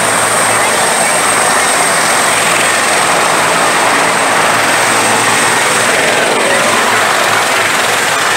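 Bell 212 helicopter running on the ground, its twin turbines and two-bladed rotor making a loud, steady noise with a thin high whine over it.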